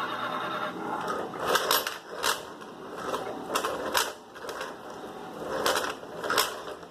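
A run of sharp clicks and clattering knocks, about seven at irregular intervals.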